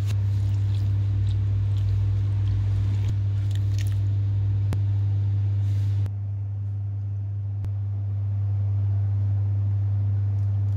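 A steady low hum, with faint scraping from a utensil stirring dry cake ingredients in a plastic bowl during the first few seconds.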